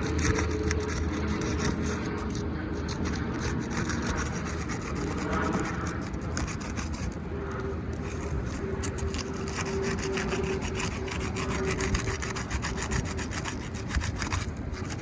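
Worn, degranulated asphalt shingles being worked loose and pulled up from a roof, with continuous irregular scraping and rubbing as the tabs are lifted and dragged.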